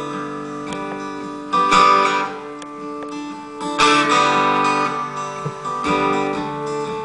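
Acoustic guitar strummed, a fresh chord about every two seconds, left ringing in between.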